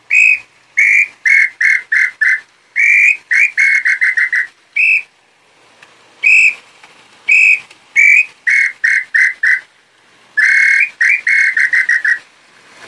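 A wooden throat-type tinamou call (pio garganta for the nambu pé roxo) blown by mouth. It whistles in repeated phrases: one or two longer, higher notes followed by a quick run of four or five shorter notes, with pauses between the phrases, about four times over.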